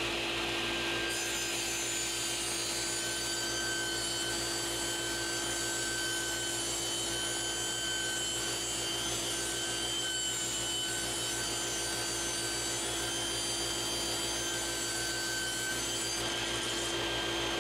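Table saw with a 24-tooth rip blade running steadily while ripping a long wooden board, a continuous even whine over the cutting noise.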